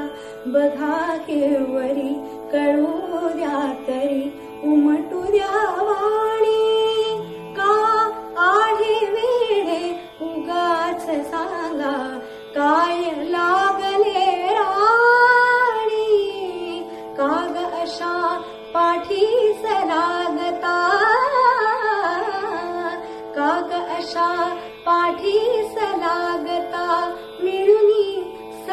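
A woman singing a Marathi song solo in Indian classical style, her voice gliding and ornamenting the melody in long phrases over a steady drone.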